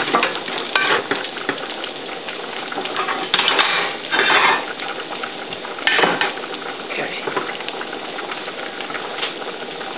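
A patty frying in oil in a skillet, giving a steady sizzle, while pots, pans and utensils clatter several times as cookware is moved around on the stovetop, loudest a little past three seconds in and again about six seconds in.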